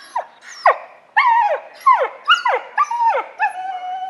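A dog whining and yipping: a quick string of short yelps, each sliding down in pitch, then a longer, drawn-out whine from about three and a half seconds in.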